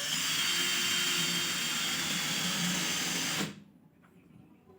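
Electric power tool running at high speed for about three and a half seconds, then stopping abruptly. Its motor whine sits over a dense hiss.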